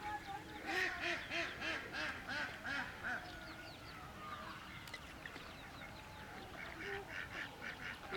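Ducks quacking in quick runs of calls, about four a second, for the first few seconds and again near the end.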